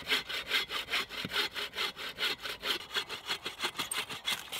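Hand saw cutting through a dead, slightly rotten log in quick, even back-and-forth strokes, about four to five a second, taking a disc off the end of the log.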